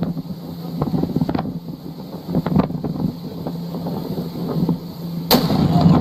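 Tavurvur volcano's eruption shockwave arriving as a sudden loud boom about five seconds in, over the steady hum of a boat's motor and wind on the microphone.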